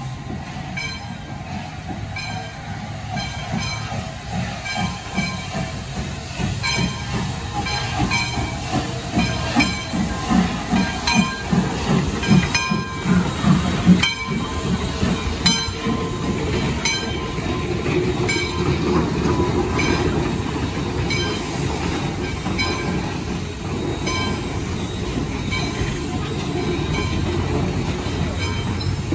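Baldwin 0-6-0 steam locomotive No. 58 running slowly past at close range, its rhythmic pulsing loudest as the engine goes by about 10 to 14 seconds in. After that comes the steady rumble of passenger coaches rolling past on the rails.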